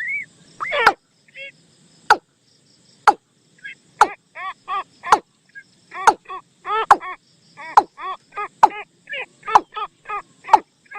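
Bird calls played as a trapping lure: a quick series of short, arched, pitched notes interspersed with sharp clicks, repeating irregularly about once or twice a second.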